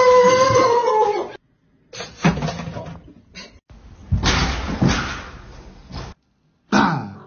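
A long held wailing cry at the start, then, after a short break, a house cat's harsh noisy cries and a slam at a glass front door, with a short falling cry near the end.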